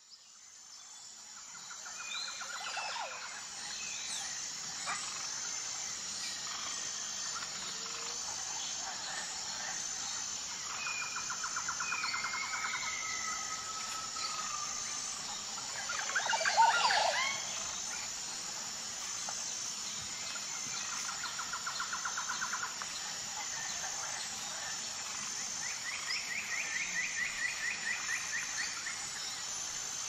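Natural ambience of several birds calling, with repeated trills and whistled gliding notes and one louder sweeping call about halfway through, over a steady high-pitched drone. It fades in at the start.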